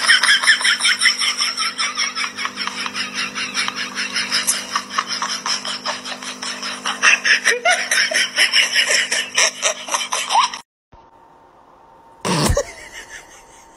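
Laughter, a long run of rapid, even pulses, about five a second, over a faint steady hum, which cuts off abruptly about ten seconds in. A single brief sound follows near the end.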